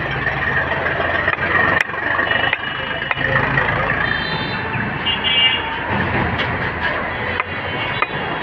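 Street traffic: engines of passing vehicles running, with a horn tooting briefly around the middle. A few sharp knocks, a butcher's knife striking a wooden chopping block.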